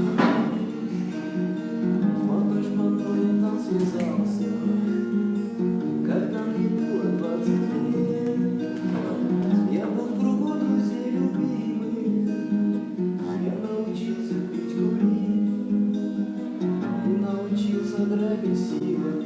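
Acoustic guitar strummed, playing a song's chords steadily.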